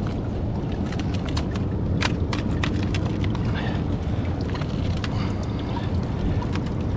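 Large mussel shells clicking and cracking against each other as gloved hands grip and twist them off a rock, over a steady low rumble.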